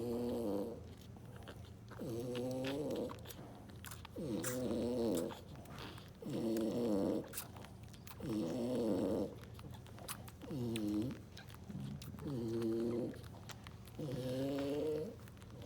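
A dog's noisy, pitched breathing like snoring, one drawn-out breath about every two seconds, steady and rhythmic.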